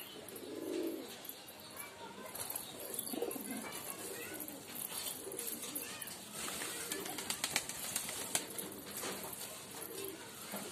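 Domestic pigeons cooing, low and soft. Through the second half, many sharp little clicks of beaks pecking grain from a hand.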